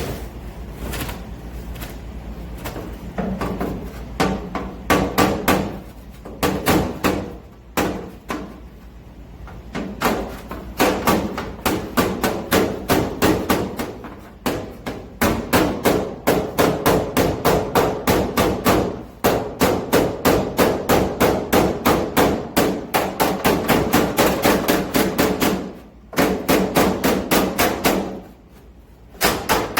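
Body hammer tapping against a dolly on a truck's sheet-steel body panel, knocking out dents: long runs of quick, light, even taps, about three to four a second, broken by short pauses.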